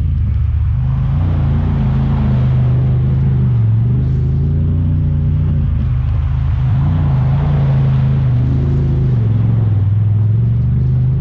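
Honda Talon 1000R side-by-side's parallel-twin engine running on the trail, its pitch dipping briefly a few times as the throttle eases. A louder rushing noise swells over it twice.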